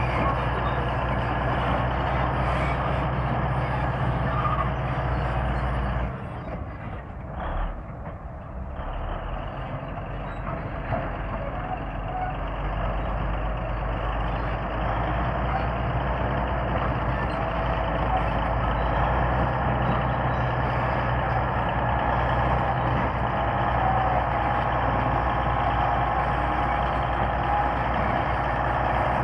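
Komatsu D155A bulldozer's diesel engine running steadily under load, dropping off briefly about six seconds in and building back up by about ten seconds.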